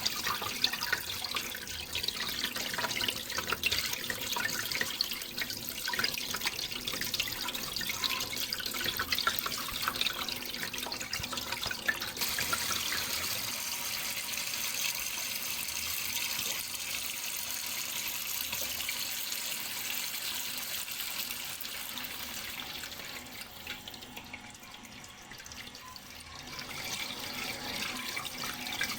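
Water running and splashing in a steady stream, full of small splashes at first. About twelve seconds in it turns to a smoother hiss, and it drops quieter for a few seconds near the end before picking up again.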